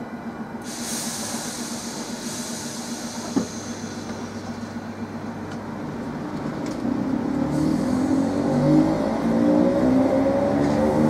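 Electric multiple unit pulling away from a platform: a hiss and a single click early on, then traction motors whining and rising in pitch as the train gathers speed, growing louder toward the end.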